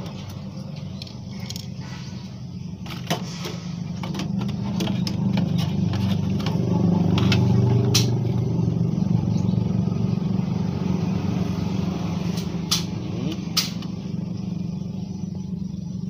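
A steady low rumble swells from about four seconds in and eases off later. Over it come scattered light clicks and taps as a refrigerator compressor's metal start-capacitor bracket and its wires are handled and unhooked.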